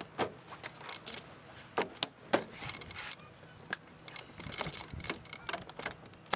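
Plastic door-panel clips and the trim panel of a Chevy HHR door clicking and knocking as the panel is pressed back onto the door: a scatter of sharp clicks, louder ones around two seconds in and a sharp one at the end.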